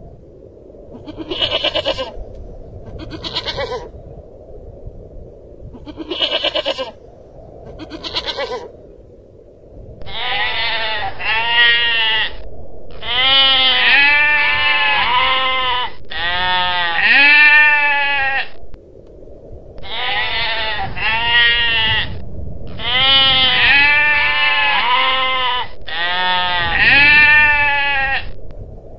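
Long-tailed goral calling: four short, rough calls in the first nine seconds, then from about ten seconds in a run of six long bleats, each wavering up and down in pitch.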